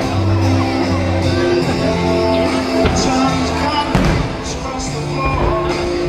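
Loud music with singing, rock-style, with a couple of sharp hits about three and four seconds in.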